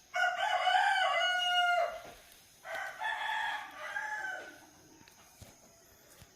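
Rooster crowing twice: a loud cock-a-doodle-doo in the first two seconds, then a second, quieter crow about a second later, each ending in a falling drawl.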